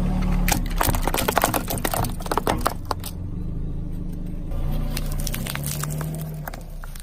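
A car tyre rolling over and crushing something crunchy: a dense run of sharp cracks and crackles over the first three seconds, above the car's engine running, which then carries on steadily on its own and fades near the end.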